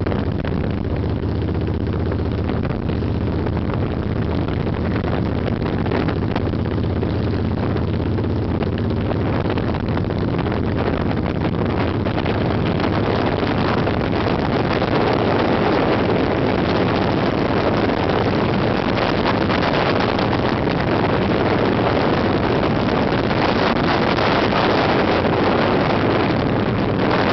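Motorcycle engine running steadily at road speed, with wind rushing over the microphone. The wind rush grows louder about halfway through and partly covers the engine's hum.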